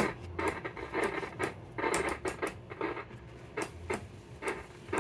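RCA 813K tube radio crackling and scratching in irregular short bursts, with a low hum coming and going, as the chassis is worked on. It is the sound of an intermittent connection, which the repairer puts down to loose tube sockets.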